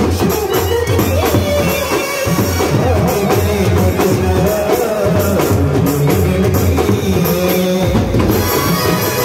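Indian brass band playing: trumpets and brass horns carry a wandering melody over a steady beat of drums struck with sticks.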